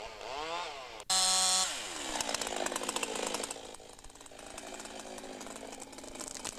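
Two-stroke chainsaw revving up and down twice, then an abrupt loud burst at full throttle about a second in that winds down and settles to idling.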